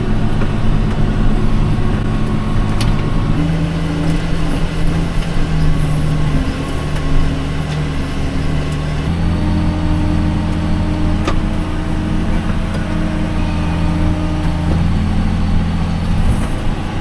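A vehicle engine running steadily at a constant drone, its pitch stepping to a new level twice, about three seconds in and again about nine seconds in.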